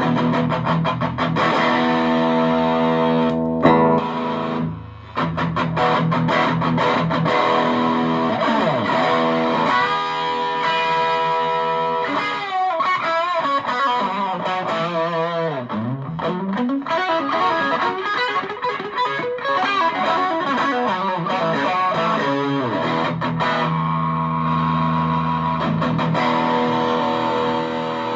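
Electric guitar played through a TC Electronic Dark Matter distortion pedal. Distorted chords ring out, with a brief dip about five seconds in, then a middle stretch of lead playing with string bends, and held chords again near the end.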